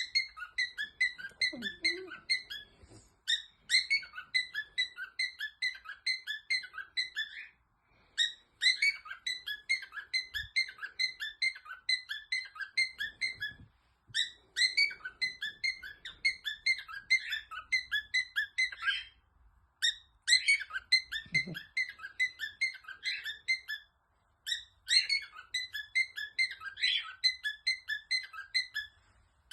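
Rapid, high bird-like chirping in bouts of about four to six seconds, separated by short pauses.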